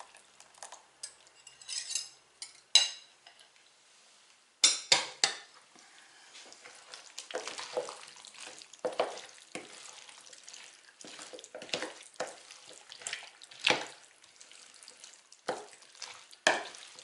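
Egg-and-sour-cream batter poured onto diced potatoes and onions in a mixing bowl, then stirred in with a wooden spoon. The stirring gives irregular scrapes, knocks and wet squelches, getting busier from about five seconds in.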